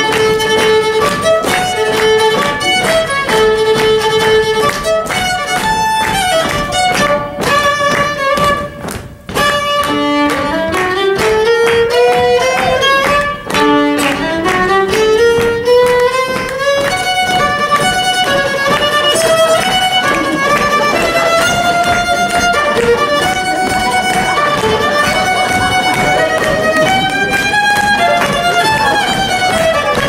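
Fiddle playing a melody full of sliding notes and long rising runs, over band backing. The music drops away briefly about nine seconds in.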